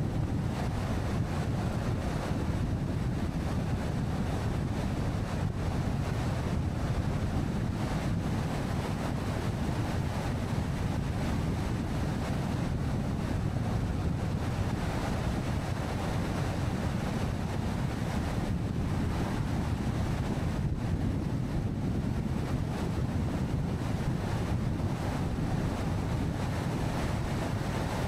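Steady road and wind noise from a car driving along a highway, a constant low rumble that holds even throughout.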